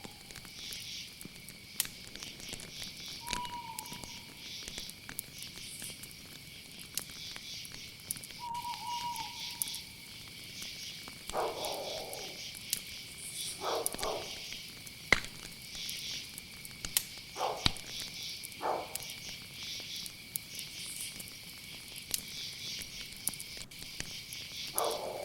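Night ambience of crickets and other insects chirring steadily, with an owl giving two short single hoots early on. A few short lower animal calls come in the middle and near the end, over scattered sharp crackling clicks.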